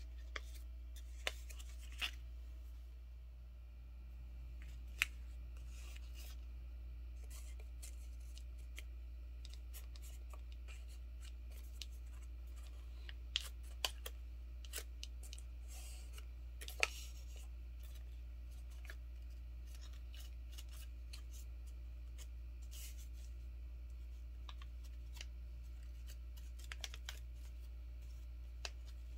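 A sheet of paper being folded and creased by hand: scattered sharp creasing clicks and short crinkles over a steady low hum.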